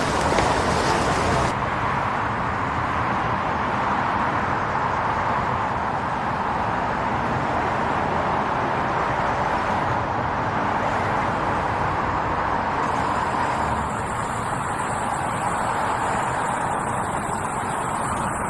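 City street ambience: a steady wash of traffic noise from passing vehicles, with no single event standing out.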